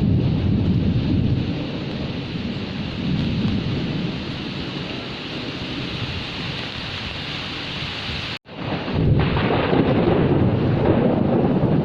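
Steady rain with thunder rumbling low underneath. The sound cuts out for an instant about eight seconds in, then returns with a louder rumble.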